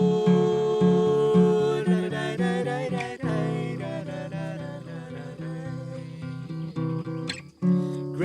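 Song with acoustic guitar strumming in an instrumental passage between sung lines. The music drops out for a moment near the end and comes back in.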